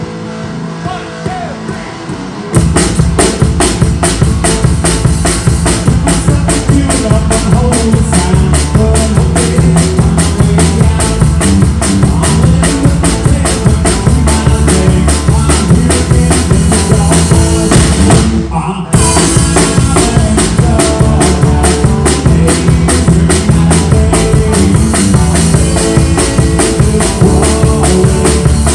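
A rock song played live with electric guitar, bass and a drum kit. After a quiet opening of about two and a half seconds the full band comes in loud on a steady beat, stops for a split second about 18 seconds in, then comes straight back in.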